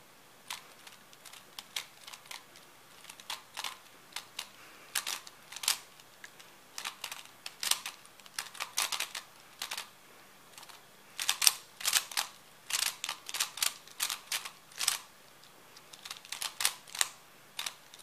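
A Rubik's smart cube being turned rapidly by hand during a timed solve: fast runs of sharp plastic clicks and clacks as the layers snap round, broken by short pauses, the longest about ten seconds in.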